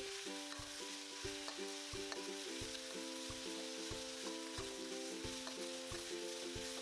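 Beef and scallions sizzling in a smoking-hot iron wok as a metal spatula stir-fries them quickly, with soft background music playing a slow melody.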